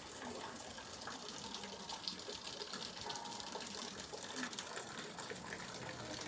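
Small stream babbling steadily.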